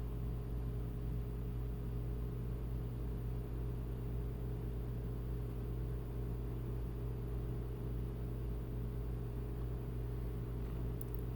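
Steady low background hum made of several even tones, unchanging throughout, with a faint click or two near the end.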